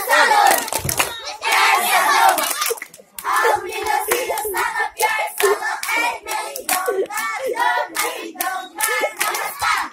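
A group of children clapping their hands in rhythm while singing a chanted game song together.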